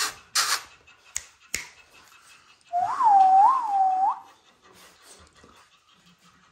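A person whistling: one clear held note of about a second and a half, with two quick upward swoops and a final rise, about three seconds in. A few light clicks come in the first second and a half.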